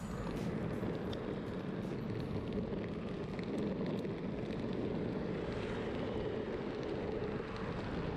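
Steady rolling noise and wind rush from riding an electric longboard along a road, with a few faint clicks.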